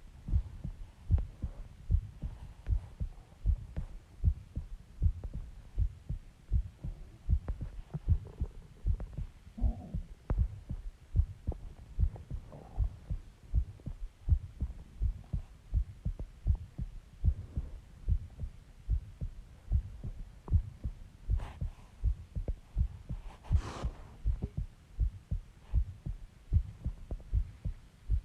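A person's heartbeat recorded close up: a steady, regular run of low thumps.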